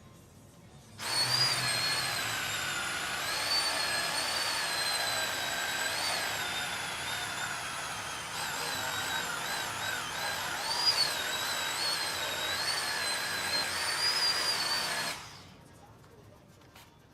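Electric power tool motor running for about fourteen seconds, its whining pitch dipping and recovering as the load changes, then cutting off suddenly.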